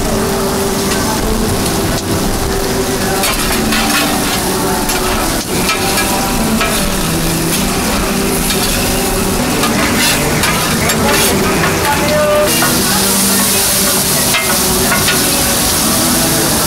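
Beef makchang (entrails), garlic and green peppers sizzling on a hot flat griddle, tossed and scraped with metal spatulas that click and scrape against the plate. The sizzle grows louder and hissier about twelve seconds in.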